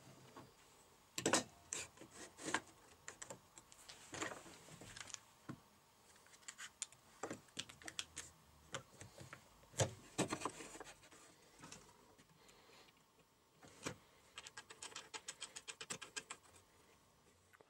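Wooden jig parts being handled and fitted on a miter saw's metal table: scattered clicks, knocks and taps of wood on wood and metal. A quick run of rapid clicks comes near the end.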